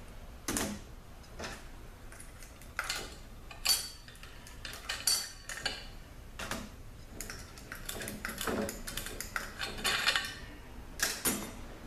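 Metal clutch plates and rings from a 66RFE automatic transmission's clutch drum clinking and clattering as they are handled and set down on a metal workbench. It is a scattered series of sharp metallic clinks, some of them ringing briefly.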